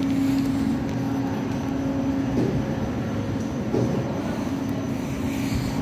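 Wheeled suitcases rolling across a hard terminal floor: a steady rumble with a few light knocks, over a steady low hum.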